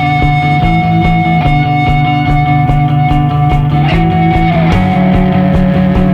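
Rock background music with guitar over a steady beat, a held high note bending down about four seconds in.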